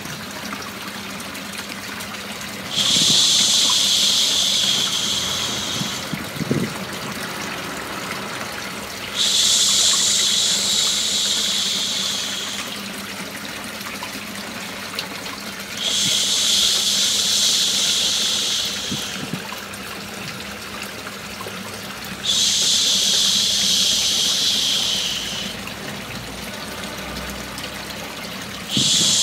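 Steady sound of running water with a long 'shhh' shush over it. Each shush lasts about three seconds and comes back about every six and a half seconds, five times, the last just starting at the end.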